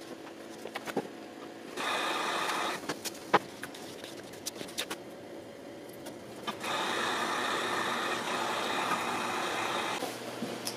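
Heat gun switched on twice, running with a steady fan whine and rush of air for about a second, then again for about three seconds. Light clicks and taps of handling come between the runs.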